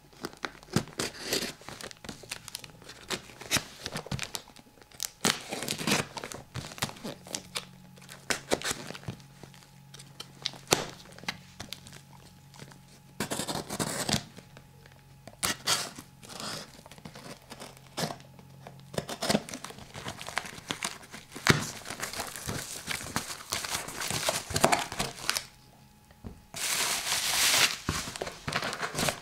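Knife cutting through the tape and yellow wrapping of a cardboard parcel, with irregular scratching, tearing and crinkling as the wrapping is slit and pulled away and the cardboard flaps are opened. A longer, louder run of tearing and rustling comes near the end.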